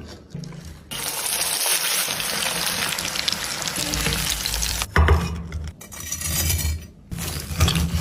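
Chicken pieces coated in crushed potato chips frying in hot oil, with a steady sizzle. About halfway through, the sizzle breaks into shorter stretches and low background music beats come in.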